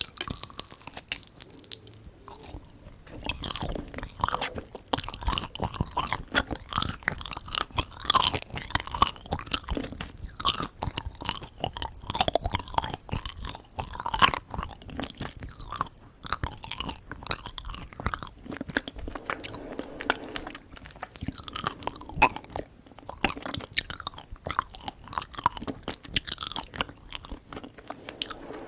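Close-miked chewing and biting of Korean traditional sweets, with a dense, irregular run of small sticky clicks and crunches.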